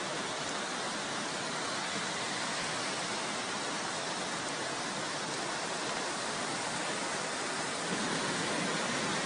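Fast-flowing floodwater rushing past in a steady, even roar of noise.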